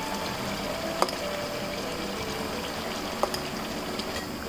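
Mutton curry bubbling in an open pressure cooker on the heat, its oil separated from the gravy. Two sharp clicks, about a second in and just past three seconds, from the spoon against the pot as onion-almond-yogurt paste is added.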